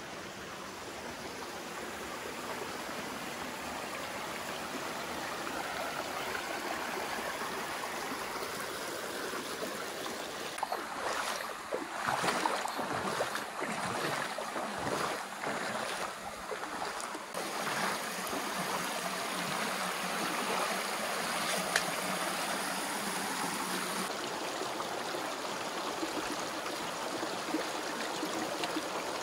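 Shallow creek water running over rocks in a steady rush, with a louder, uneven stretch about a third of the way in.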